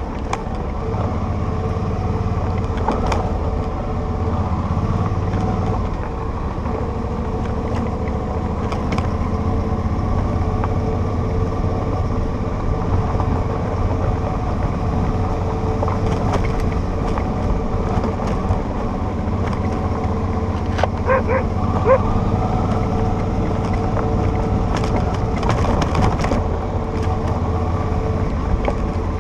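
Motorcycle engine running steadily on a gravel dirt road, with tyre and wind noise, heard from the rider's seat. A dog gives a few short barks about two-thirds of the way through.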